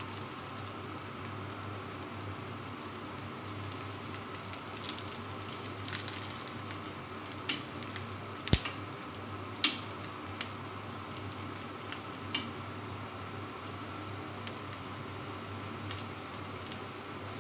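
Banana-leaf parcels of glutinous rice sizzling steadily on an oiled grill pan. Scattered sharp clicks come from metal tongs knocking the pan as the parcels are turned, several of them between about seven and twelve and a half seconds in.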